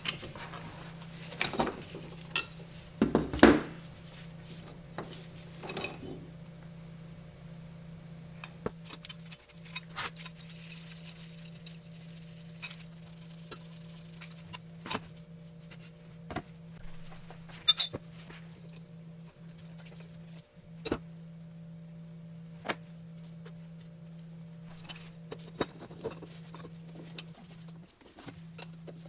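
Metal hand tools and hub parts clinking and knocking against each other and a workbench. There are a few louder scrapes and clatters in the first few seconds, then isolated sharp clicks, all over a steady low hum.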